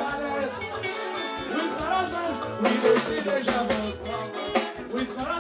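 Live band music with a drum kit, and a man singing lead.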